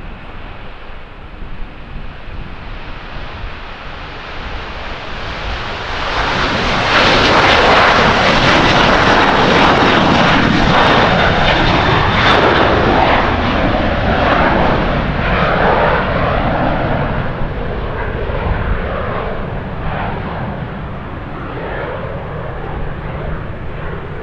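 Delta Air Lines Airbus A330-300 twin-engine jet at takeoff power as it lifts off and climbs out. The engine noise swells sharply about six seconds in, stays loud and uneven for several seconds, then slowly fades as the jet climbs away.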